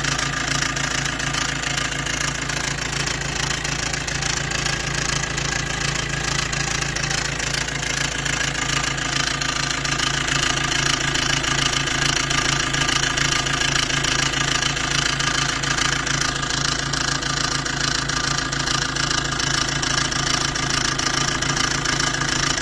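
Maruti Suzuki Dzire engine idling with a steady, loud timing chain rattle. The chain set is worn and due for replacement.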